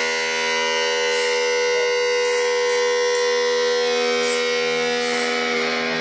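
Ibanez JS1CR electric guitar through a distorted amp, one long note sustained at a steady pitch.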